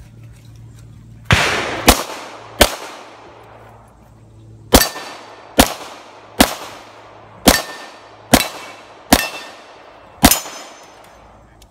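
Pistol shots, ten in all: a quick string of three, a pause of about two seconds, then seven more a little under a second apart. Several shots leave a brief metallic ringing tone behind them.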